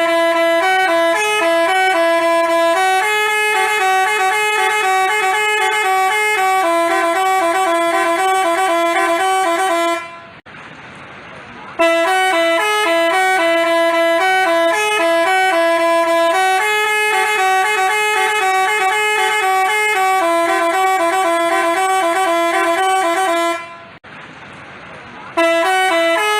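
Basuri telolet bus horn playing a tune in loud, held multi-tone notes. The tune breaks off twice for about a second and a half, leaving only a faint hiss, then starts over.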